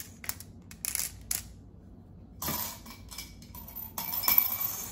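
Glass marbles clicking against one another as they are dropped into a paper boat, several sharp clinks in the first second and a half, followed by a longer rustling noise.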